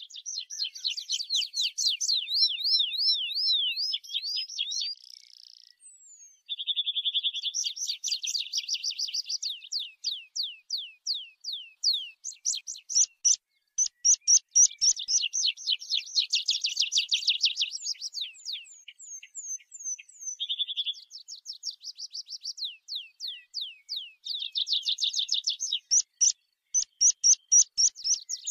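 Tree pipit singing: phrases of fast trills and series of repeated high notes, many sliding downward, with short breaks about six and twenty seconds in.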